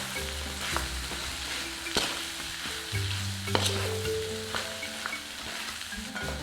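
Chicken pieces frying and sizzling in a pan as they are stirred, with several sharp clicks of the stirring utensil against the pan.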